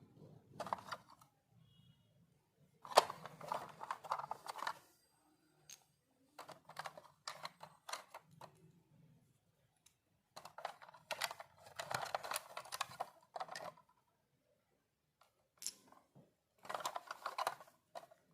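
Miniature toys and their packaging being handled and unboxed: bursts of rapid, light clicking and crinkling, several seconds at a time with short pauses between.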